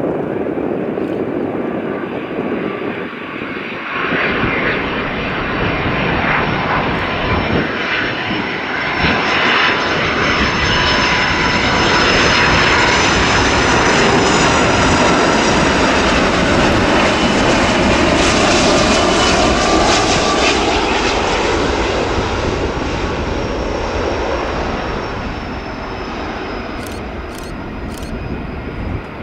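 Boeing 757-200's twin jet engines on final approach to landing: a rumble with a high whine that swells as the airliner flies past, is loudest midway, then eases off as it comes down to the runway.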